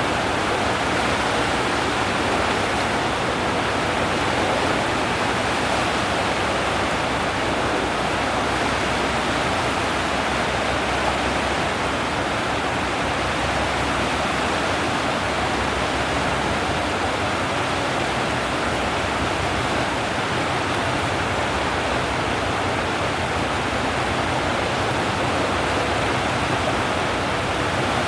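Steady, even rushing noise that holds without a break.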